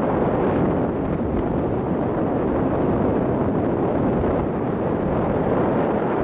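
Steady road and wind noise of a moving car.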